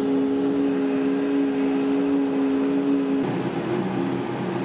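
DWC5100 CNC router running, its spindle giving a steady whine over machine noise as it works a plywood sheet. About three seconds in, the tone drops and a lower rumble comes in.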